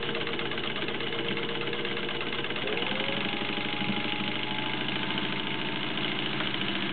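Singer 15-91 sewing machine running steadily at speed on its gear-driven potted motor, with the fine rapid clatter of the needle bar over the motor's hum. The motor pitch steps up slightly about three seconds in.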